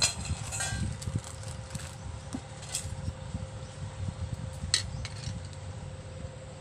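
Stainless steel bowl and metal ladle being handled: a few sharp metallic clinks, one near the start, then about three and five seconds in.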